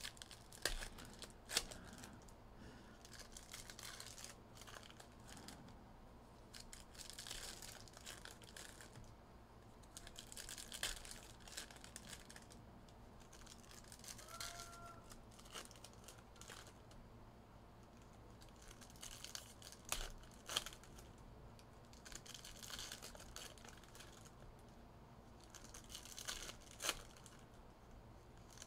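Faint crinkling and tearing of plastic wrapping as a sealed trading-card hobby box and its foil packs are opened by hand, with scattered light clicks and taps of cardboard and cards.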